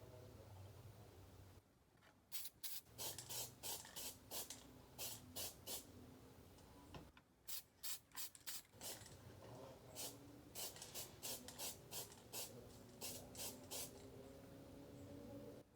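Aerosol can of Sapporo K36T textured black paint sprayed in quick short bursts, about three to four hisses a second, with a couple of brief pauses.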